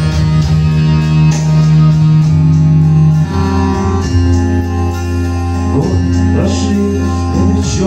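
Live band playing an instrumental passage of a rock song: electric guitar over sustained keyboard chords and a low bass line, the chords changing about two and three seconds in.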